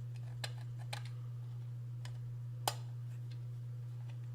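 Scattered sharp plastic clicks and taps from handling a GSM alarm's motion sensor, about six in all, with one louder click a little past the middle, over a steady low hum.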